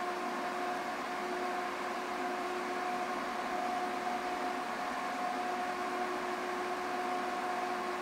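Titan 12 V twin 140 mm reversible roof vent fan running steadily in reverse: an even rush of air with a steady hum of a few tones.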